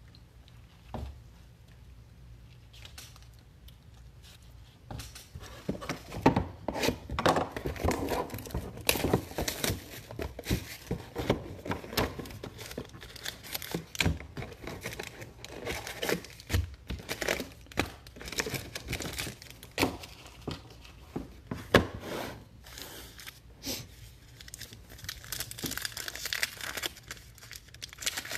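Trading-card boxes being handled and their silver foil packs torn open by hand: a dense run of crinkling, crackling and small knocks that begins about five seconds in, with a hissier tearing near the end as a wrapper rips.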